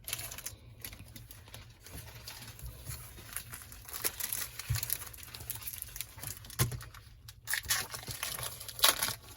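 A foil Pokémon booster pack wrapper crinkling and being torn open by hand, an irregular crackle with sharper snaps, the loudest near the end.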